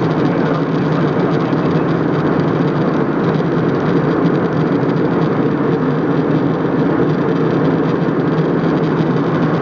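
Steady cabin drone of an airliner in flight: engine and airflow noise heard from inside the cabin by the window, even and unchanging.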